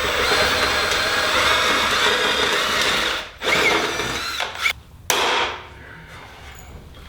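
Electric drill boring through sheet metal, running steadily with a faint squealing from the bit. It stops about three seconds in and is followed by two short bursts.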